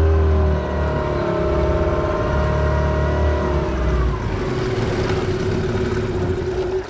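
Outboard motor pushing a small aluminium fishing boat along at speed, its engine note easing down in steps, then throttled back sharply at the very end as the boat slows.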